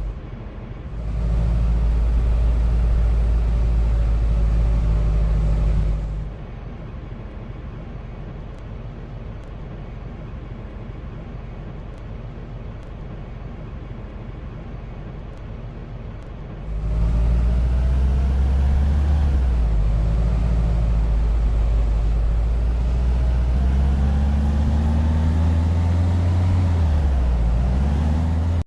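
Motor vehicle engine running, loud and low, with its pitch rising and falling as it speeds up and slows. It drops away abruptly about six seconds in to a quieter steady road noise, and returns loudly about seventeen seconds in.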